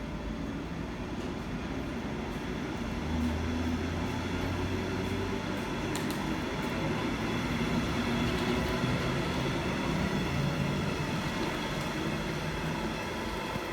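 Electric train running by, a steady rumble with a low electric hum that shifts in pitch. It gets louder about three seconds in.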